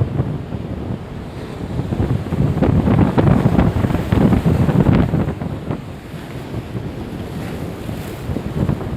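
Wind buffeting the microphone in gusts, a low rumbling noise that swells strongest a few seconds in and then eases.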